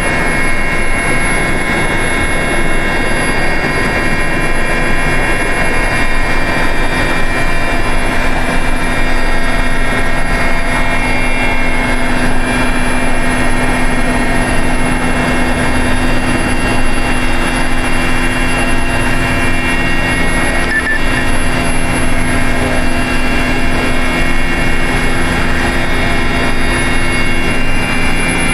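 Mi-8-type helicopter's twin turboshaft engines and rotor running steadily, a constant turbine whine over the rotor drone, heard inside the cockpit.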